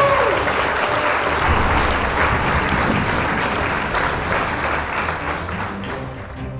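Applause, growing gradually quieter and fading out near the end.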